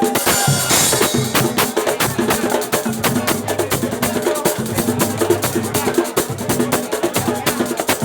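Percussion-led batuque music: fast, even strokes and wood-block-like clicks over a steady bass line.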